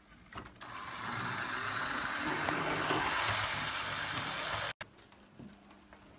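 OO gauge model train running along the track close by: a steady whirring rush of motor and wheels that cuts off suddenly just before five seconds in.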